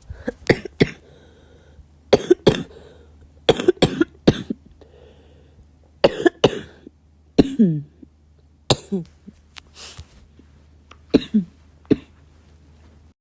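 A girl coughing in repeated short fits of two to four coughs each, with pauses of about a second between fits. A few of the coughs end in a falling, voiced sound.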